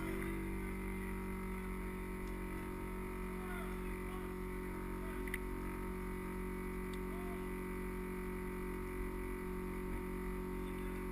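Anti-fog goggle fan running right beside the microphone: a steady motor hum with several fixed tones, muffled by a waterproof camera case, with a faint click about five seconds in.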